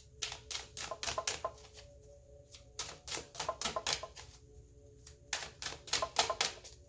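A deck of tarot cards being shuffled by hand. The cards click and flick against each other in quick runs, three runs with short pauses between.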